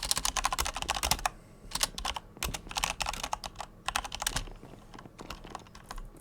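Butterfly-knife clicker toy being flipped, its handles clacking: a rapid run of clicks for about the first second, then scattered single clicks that thin out and grow quieter.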